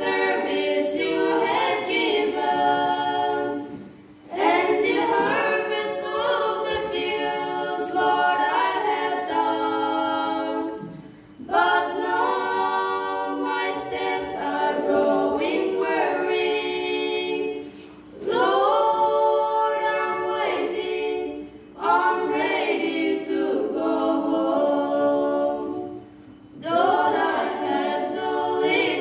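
Trio of girls singing a cappella into microphones, in sung phrases broken by a short breath pause every few seconds.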